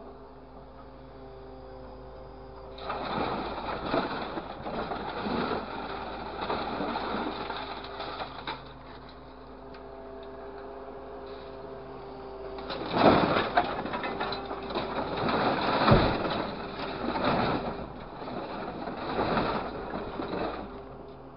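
Scrap-hauling grapple truck at work: a steady engine and hydraulic hum under long rounds of crunching, clattering scrap metal as the claw grabs a load from the pile and then drops it into the steel truck bed, with the loudest metal crashes just past halfway.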